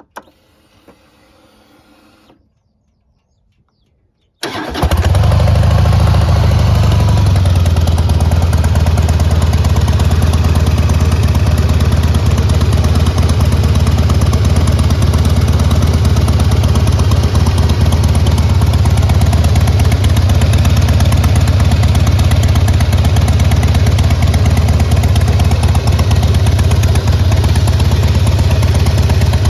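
2004 Harley-Davidson Heritage Softail Classic's fuel-injected V-twin being started: a click and about two seconds of faint whirring as the fuel pump primes, then the engine cranks and catches about four and a half seconds in. It runs a little faster for a couple of seconds, then settles into a steady idle.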